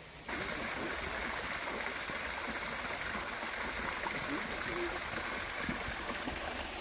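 Creek water running steadily over rocks, starting abruptly just after the start.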